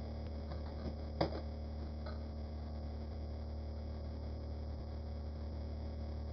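A steady low hum, with one short sharp click a little over a second in.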